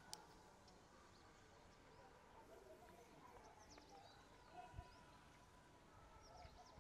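Near silence: faint, scattered high chirps of distant birds, with a sharp click just after the start and a low thump about five seconds in.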